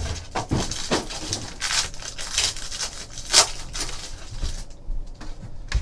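Plastic and foil trading-card pack wrapping crinkling and tearing as a pack is opened by hand, in a run of short crackles; the loudest is about three and a half seconds in.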